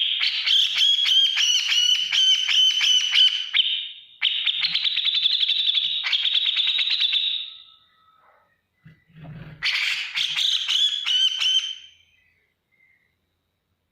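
Grey-cheeked bulbul (cucak jenggot) singing in three long runs of fast, repeated ticking notes, with short pauses between them.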